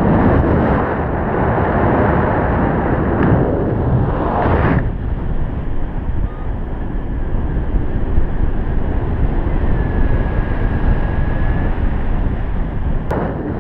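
Wind rushing and buffeting over the camera microphone of a paraglider in flight. The noise thins to a lower rumble about five seconds in.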